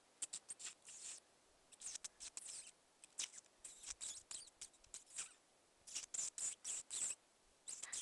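Repeated bursts of short, high-pitched squeaks, each burst a quick run of several squeaks with brief pauses between: a person imitating a mouse's squeak (the Swedish "muspip") to call in a badger.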